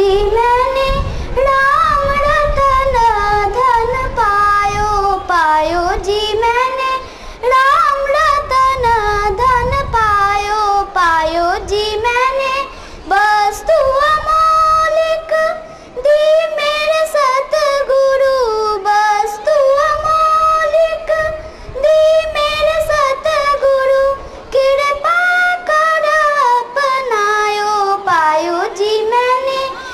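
A child singing a solo song: a single voice carrying the melody with sliding, ornamented pitch, broken by brief pauses between phrases.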